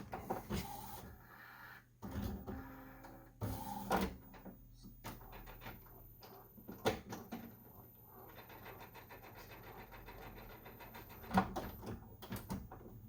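Epson WorkForce WF-7720 inkjet printer running its power-on start-up cycle: a series of separate mechanical clicks and knocks with softer whirring in between, over a faint steady hum.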